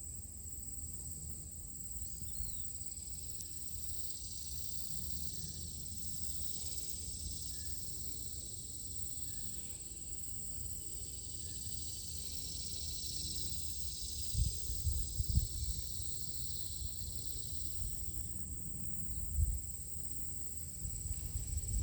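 Insects chirring in a steady, high, unbroken drone. Low rumble and a few thumps on the microphone sit beneath it, the loudest about two-thirds of the way through.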